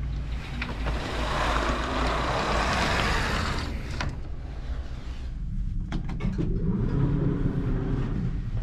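A rushing, sliding noise with a few clicks as a capsule bed's shade is pulled open, over a steady low rumble.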